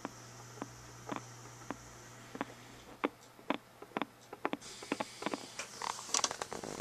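Faint, sharp, irregular clicks from the 1936 Philco 630B's field-coil loudspeaker as a 9-volt battery is tapped on and off across the primary of the audio output transformer. The clicks come about one to two a second and bunch into a quick flurry near the end. The speaker answering the battery is taken as the sign that the speaker and output transformer are working.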